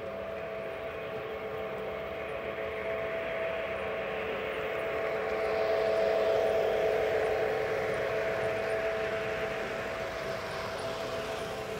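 Lionel O scale model train running on the layout's track with a steady hum, growing louder as it comes close about halfway through and then fading as it moves away.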